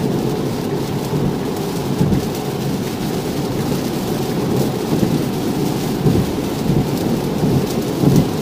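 Steady low rumble of tyres on a soaked highway and heavy rain hitting an electric Tesla, heard from inside the cabin at highway speed, with the windshield wipers sweeping on automatic.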